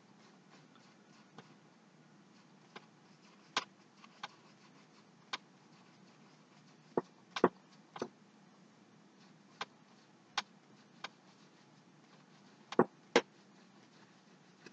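Irregular light taps and knocks of a paintbrush stroking paint onto a stretched canvas on an easel, over a faint steady room hum. Louder knocks come in pairs about seven seconds in and near the end.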